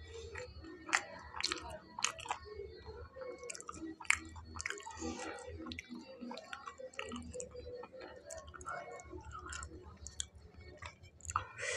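A man chewing a mouthful of fried pakoras close to a clip-on microphone: irregular crunchy clicks and mouth noises, a few sharper crunches standing out.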